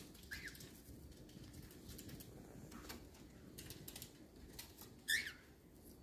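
Cockatiel giving two short chirps, a faint one about half a second in and a louder one near the end, with a few light clicks and scrapes of claws and beak on cardboard and branches between them.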